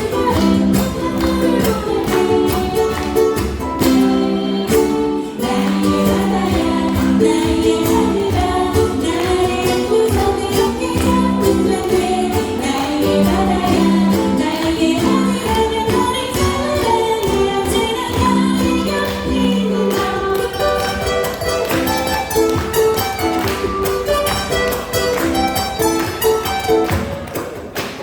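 Ukuleles strummed in a steady rhythm with voices singing along.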